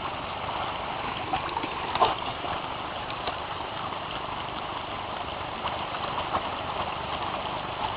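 A creek running over rocks: a steady rushing babble of water, with a brief knock about two seconds in.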